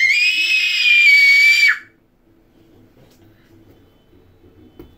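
A toddler's loud, high-pitched squeal of excitement, held on one pitch and cutting off sharply a little under two seconds in.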